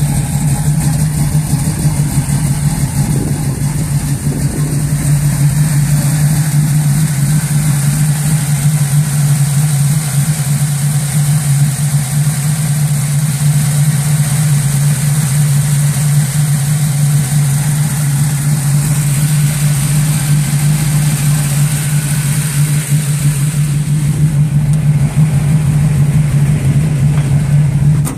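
Radically cammed Chevrolet 350 small-block V8, bored to 377, idling steadily at a loud, even level with no revving.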